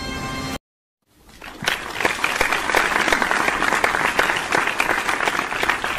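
Audience clapping, building up about a second in after a brief silence, then dense and steady, and starting to die away near the end. A music track cuts off abruptly just before it starts.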